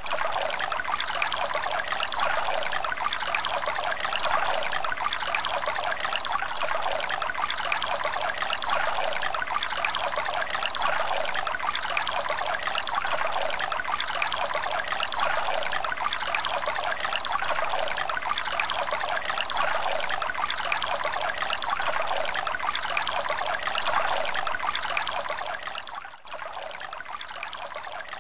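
A thin stream of water pouring and trickling steadily, splashing into water; it weakens and grows quieter near the end as the flow thins.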